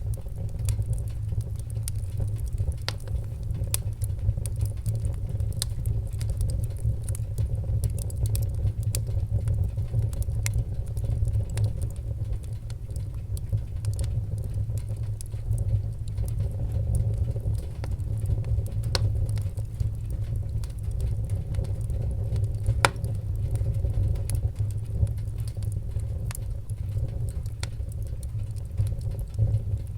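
Wood fire burning in a wood stove: a steady low rumble of the flames, with scattered sharp crackles and pops from the burning wood. The loudest pop comes about three quarters of the way through.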